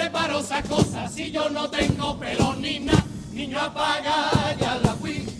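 Cádiz carnival chirigota music: a group of voices singing together, with drum strikes through it.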